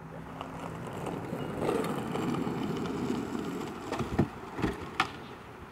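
Car noise on a street, a steady rush that swells for a couple of seconds and then eases, with a few sharp knocks about four to five seconds in.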